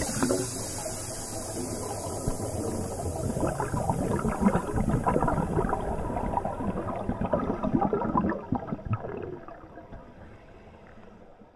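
Bubbling and gurgling of scuba divers' exhaled air heard underwater, muffled through the camera housing, fading out near the end.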